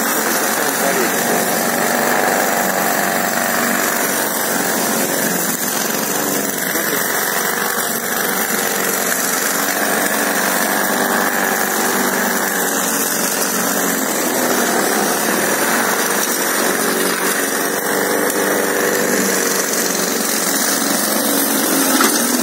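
Petrol walk-behind rotary lawn mower running steadily at full throttle close by, pushed over patchy grass and bare soil.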